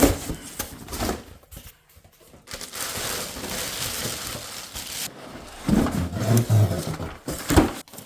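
Packaging being handled and pulled off an unboxed tool: a stretch of crinkling and rustling, then several knocks and thuds as the item is handled.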